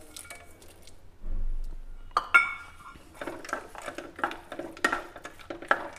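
A spatula stirring and scraping sabudana poha in a nonstick pan: a series of short scrapes and taps, with a low thump and then a single ringing metallic clink about two seconds in.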